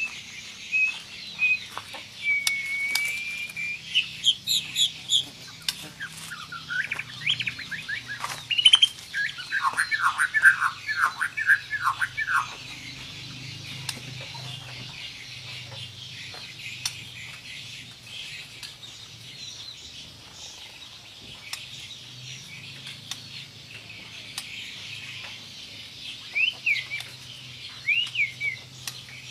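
White-rumped shama singing. It starts with loud whistled phrases, then about nine seconds in gives a fast, tight run of rapidly repeated falling notes. After that it drops to scattered short calls, with a few slurred whistles near the end.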